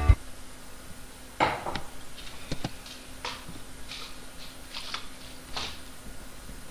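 Guitar background music cuts off right at the start, then a handful of faint, scattered clicks and knocks sound over a low steady hum.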